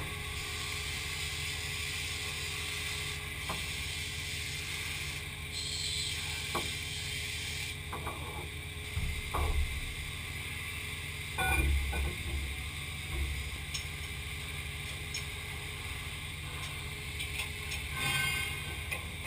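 Steady machine hum with scattered clinks and metal clunks as steel jigs are handled and clamped on a CNC machining centre's table, the heaviest thuds about halfway through as a heavy jig is set down.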